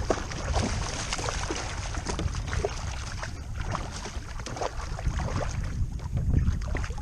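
Water splashing and sloshing close to a kayak as a hooked bass is fought beside the boat, with wind rumbling on the microphone.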